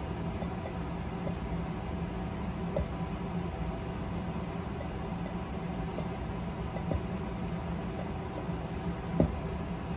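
Sodium hydroxide solution heating in a glass beaker on an electric hot plate to evaporate off its water: a steady low hiss and hum with scattered small ticks and clinks from the beaker, and one sharper click near the end.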